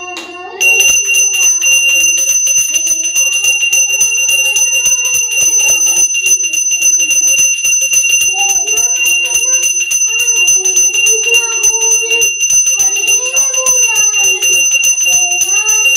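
Puja hand bell rung rapidly and continuously, starting about a second in, over singing of a devotional song.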